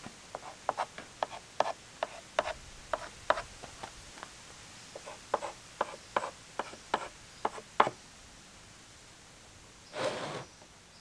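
Pencil marking a plywood panel: a string of irregular sharp taps and short scratches on the wood, a few a second, stopping about eight seconds in. About ten seconds in, a brief scraping rub on the board.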